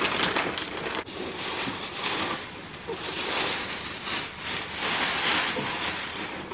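Wrapping paper and tissue paper rustling and crinkling in uneven swells as a gift box is unwrapped and the tissue is pulled out by hand.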